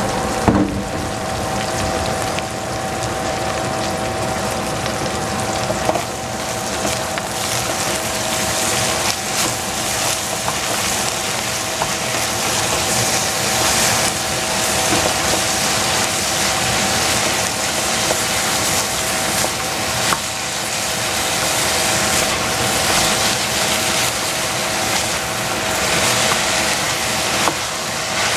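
Shredded cabbage sizzling in a stainless steel saucepan over a gas flame, stirred with a wooden spatula that scrapes and knocks against the pan. A steady two-note hum runs underneath.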